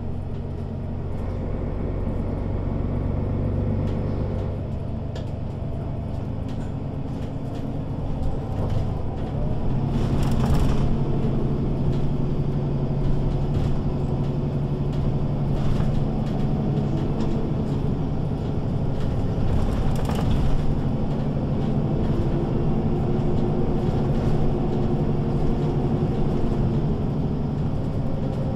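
Mercedes-Benz Citaro (O 530) city bus's diesel engine running while the bus is under way. It eases off about four seconds in and pulls harder again from about eight seconds, with scattered clicks and rattles.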